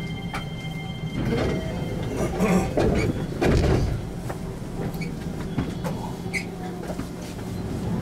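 Special Rapid commuter train running, heard from inside the car: a steady low rumble with rattling and clattering that grows louder between about one and four seconds in.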